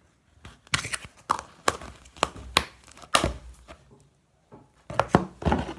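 Irregular sharp knocks and clacks of slime containers being handled and set down on a surface, about a dozen in all, with a short pause about four seconds in.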